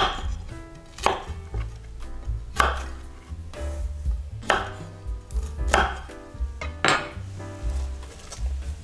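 Knife chopping vegetables on a cutting board: about five separate strikes, one to two seconds apart.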